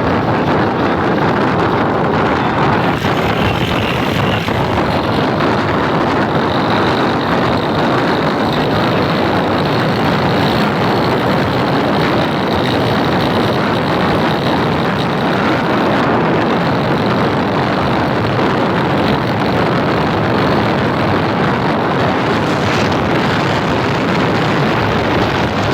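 Steady running noise of a moving vehicle heard from on board, an even, unbroken rush.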